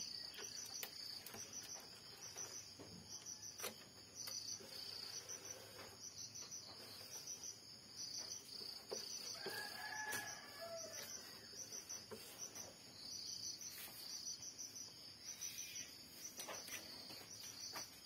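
Crickets chirping steadily in the background, a fast pulsing high trill that runs on in groups. Faint clicks come from the printer's flex cable and plastic parts being handled.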